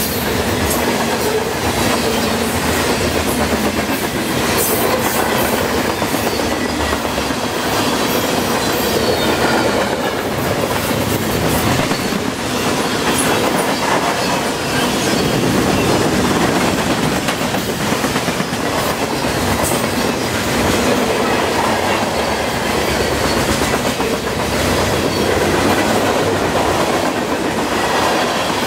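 Freight cars of a long CN freight train rolling steadily past close by: a continuous rumble of steel wheels on rail, with repeated clicks as the wheels cross rail joints.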